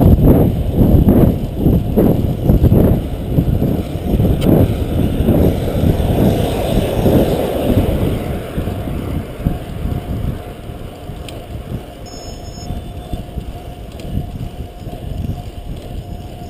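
Wind rushing over an action camera's microphone on a fixed-gear bicycle ridden at race speed, a deep rumble with fast, uneven buffeting. It eases off and turns quieter and steadier about halfway through.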